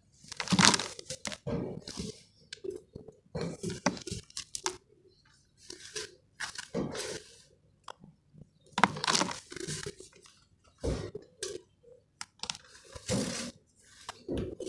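A hand crushing and crumbling chunks of charcoal mixed with sand: a series of gritty crunching bursts with small sharp crackles, about one every second or two, loudest about a second in and again around nine seconds.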